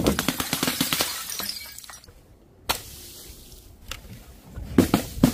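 Shattering and clattering of bottles breaking as they drop, with many small clinks and fragments dying away over the first second or so. A single sharp crash comes a little before the three-second mark, and a few more quick knocks follow near the end.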